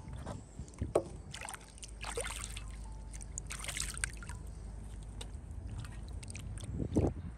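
Water sloshing, splashing and dripping in an enamel basin as pieces of bull's feet and head are rinsed and rubbed by hand, with irregular splashes and the loudest about a second in and near the end.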